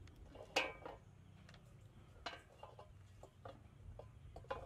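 Bamboo skewers and fish being handled in a metal basin: a series of irregular clicks and knocks, the loudest about half a second in with a brief metallic ring, another just after two seconds.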